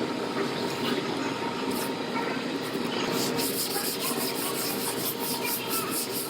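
Sanding body filler on a pickup's repaired bedside, the abrasive scraping across the filled dent; from about halfway through it goes in quick, rhythmic strokes.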